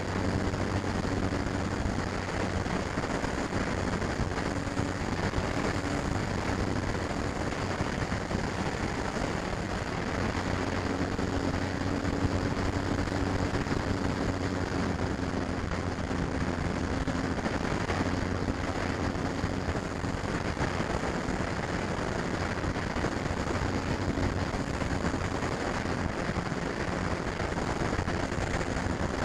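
Electric motor and propeller of a FlyZone Cessna 182 RC model plane running steadily in flight, a steady hum over a rush of wind noise on the onboard camera's microphone.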